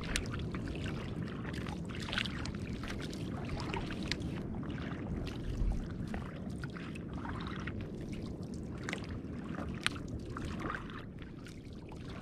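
A wooden paddle dipping and pulling through the water as a small outrigger canoe is paddled, with irregular splashes and water washing along the hull over a steady low rush.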